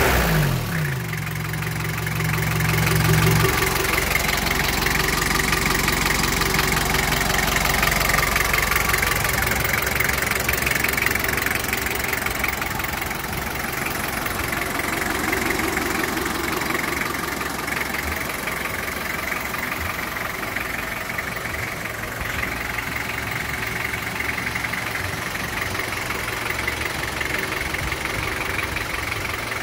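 Daihatsu Rocky F75's diesel engine idling with a knocking diesel clatter, its oil filler cap off for a blow-by check; the seller finds it running healthy with no blow-by. Its pitch shifts in the first few seconds, then it settles into a steady idle.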